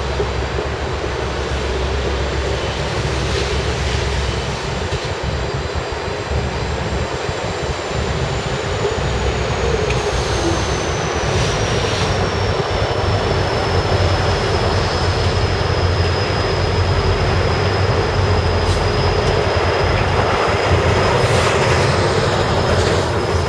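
Union Pacific GE ES44AC diesel locomotives under load pull a double-stack freight train past close by, with a steady heavy engine rumble. A high whine drops in pitch as the lead locomotive passes, then holds steady as the stack cars roll by.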